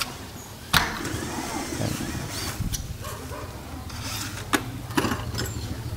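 An engine running steadily with a low hum, with a few sharp knocks or clicks on top, the loudest about a second in.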